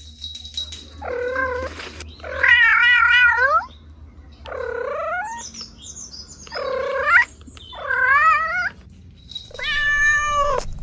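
A cat meowing six times in a row, drawn-out meows with a short gap between each; the second is the longest and wavers in pitch.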